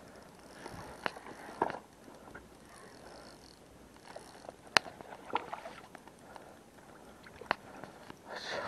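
Handling noise from an angler playing and landing a hooked sea bass: about five sharp clicks and knocks from the tackle and from footing on stones, spread out over a faint background.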